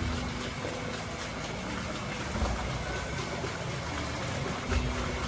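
Steady low running of a small tour boat's motor, under water splashing and trickling from a decorative paddle wheel and water spout.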